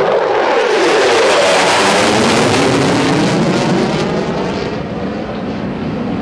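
F-16 Fighting Falcon's jet engine passing overhead: a loud rush of jet noise whose pitch drops during the first second or so. It eases off somewhat after about four seconds.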